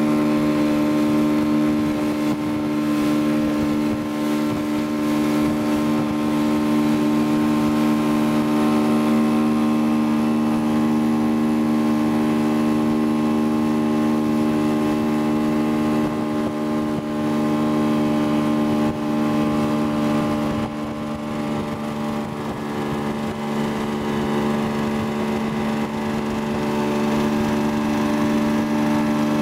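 Boat's outboard motor running steadily at towing speed, a constant multi-toned engine drone. Its level dips slightly for a couple of seconds about two-thirds of the way in, then comes back up.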